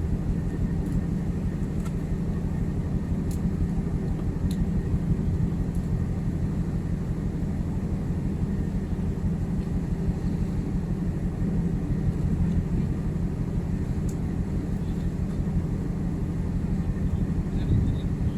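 Steady low drone of a ship's machinery, holding a constant pitch, with a few faint ticks over it.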